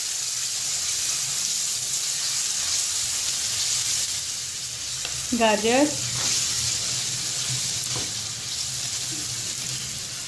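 Chopped onion, tomato and spices sizzling in hot cooking oil in a kadai, a steady frying hiss, stirred with a spatula; chopped carrots are tipped in about halfway through.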